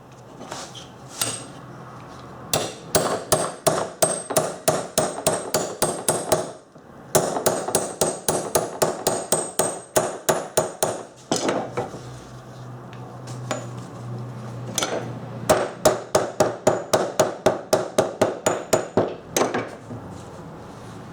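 A small hammer tapping rapidly on the metal of an antique samovar, about five strikes a second in three long runs, each strike ringing briefly, with a few single taps before and after.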